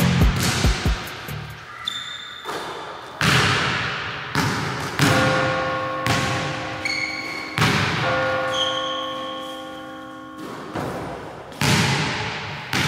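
Background music with sharp, echoing hits about once a second and held notes ringing between them. There are a few low thuds in the first second.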